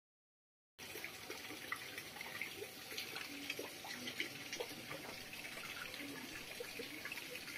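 Faint trickling, bubbling water with many small plinks, starting about a second in.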